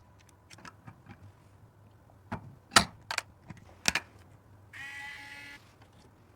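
A run of sharp clicks and clacks of computer parts being handled and fitted, the loudest a little before the middle, then a short buzzing whirr lasting under a second.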